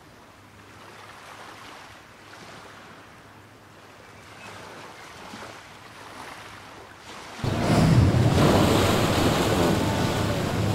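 Sportfishing boat's engines running with the propellers churning water at the stern, a steady low hum under the rush of water. About seven seconds in it becomes much louder.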